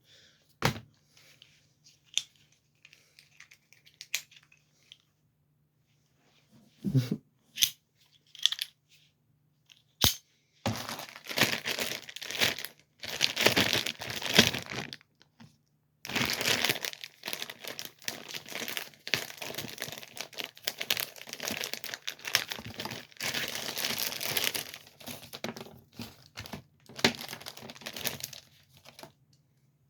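Plastic packaging being crinkled and torn by hand, with a few scattered handling clicks and knocks first, then long stretches of dense crinkling from about ten seconds in.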